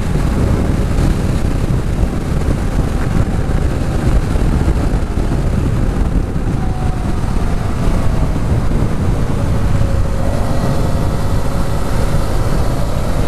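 Motorcycle riding at road speed, heard from the bike: a steady rush of wind on the microphone with the engine running underneath. Its faint engine note drifts down a little about halfway through.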